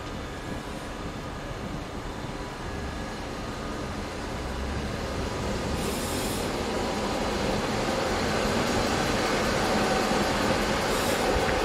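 DB class 333 Köf III diesel shunting locomotive running along the track, its engine and rolling wheels growing steadily louder as it draws near.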